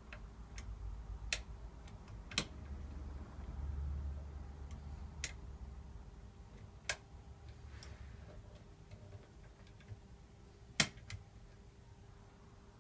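Metal lock picks working inside a Union 2234 five-lever mortice lock: a handful of sharp, spaced-out clicks of the tools against the levers and bolt, the loudest about eleven seconds in, over a low handling rumble.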